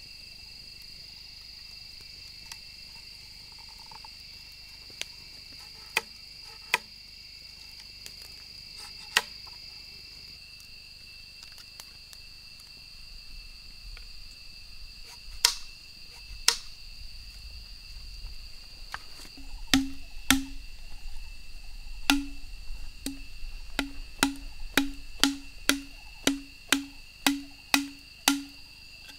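Machete chopping into bamboo: a quickening run of hollow knocks, about two a second, from about twenty seconds in, after scattered sharp knocks of blade on bamboo while carving. Insects trill steadily throughout.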